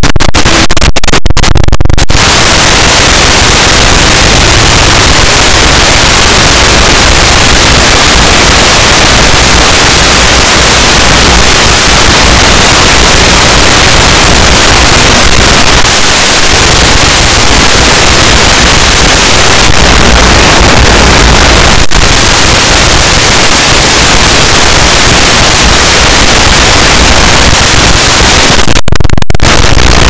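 Loud, steady static hiss, the kind recorded from an analog FPV video receiver's audio channel, with a few very short cut-outs in the first couple of seconds and again just before the end.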